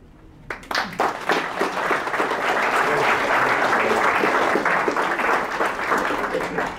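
Audience applauding. A few scattered claps come in about half a second in, build into steady applause, and die away near the end.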